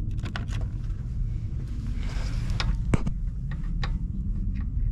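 Irregular light clicks and taps of hand tools working at the alternator's bottom bolt, one sharper click near the middle, over a steady low rumble.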